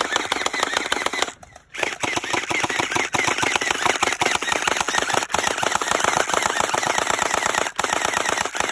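Gel blaster firing on full auto in long bursts: a rapid stream of sharp clacks, with a short break about a second and a half in.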